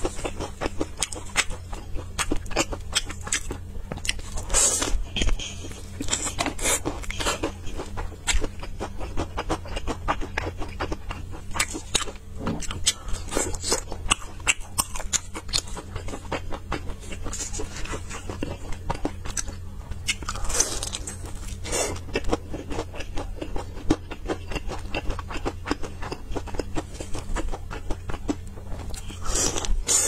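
A person biting and chewing crispy fried chicken close to a clip-on microphone, with many quick, irregular crunches.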